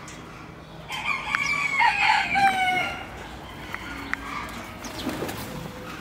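A rooster crowing once, a drawn-out call starting about a second in and lasting about two seconds, with a few faint ticks around it.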